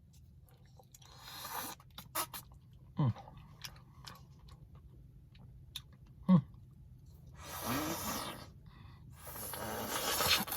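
A person eating a spoonful of Blizzard ice cream: heavy breaths through the nose, two short falling "mm" hums of tasting, and small mouth and spoon clicks.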